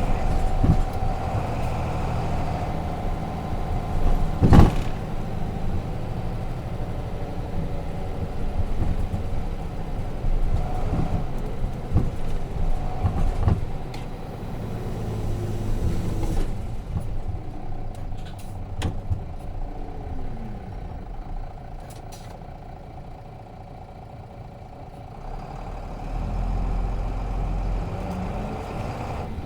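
Nissan Diesel FE6 inline-six diesel engine of a 9 m city bus, heard from inside the cabin while driving. There is a sharp knock about four and a half seconds in. Past the middle the engine revs fall and it runs quieter, then it pulls harder with a deep rumble near the end.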